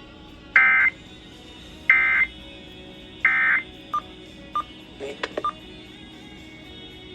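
Three short, loud bursts of EAS (SAME) data tones, a rapid two-pitch warble sent about once a second: the end-of-message code that closes the NOAA Weather Radio tornado warning. Two brief beeps and a few clicks follow.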